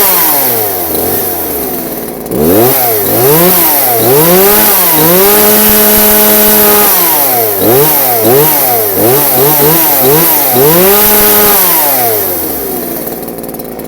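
Two-stroke chainsaw, once junk and now running again, being revved with repeated throttle blips: the engine pitch climbs and drops again and again, holds at high revs twice, then falls back to idle near the end.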